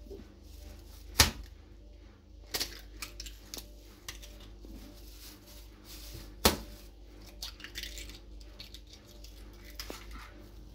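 Incubated eggs being cracked open by hand over a plastic bag: two sharp cracks, about a second in and about six seconds in, with lighter shell taps, crackling and bag rustling between. The shells are thinned by the incubator's humidity and break easily.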